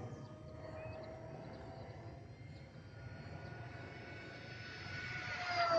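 Electric RC plane's brushless outrunner motor (RCTimer 2826, 2200 kV) and 6x4 propeller whining in flight, growing louder as the plane comes closer. Near the end it passes by and the whine drops in pitch.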